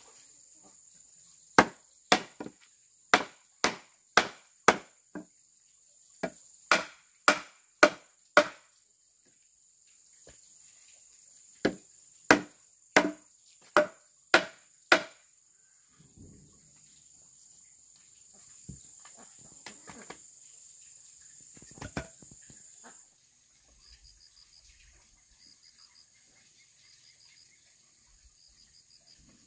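Sharp blows of a tool chopping into wood, in three runs of five to seven strokes at about two a second, with pauses between. Behind them is a steady high insect drone, and in the last few seconds insects chirp in short repeated trills.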